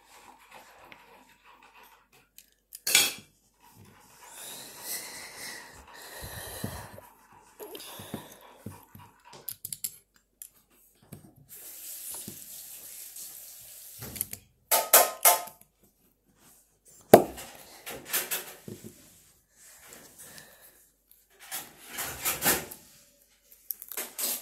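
Plastic Lego bricks being handled and pressed together: scattered clicks and clatters, with stretches of rustling in between.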